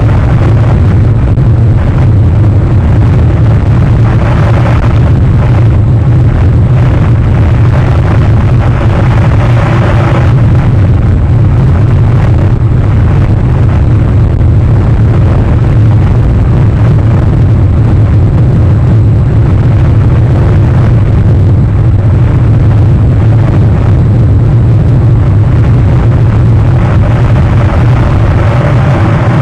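Loud, steady wind rumble buffeting the microphone, with a deep low roar that wavers but never lets up.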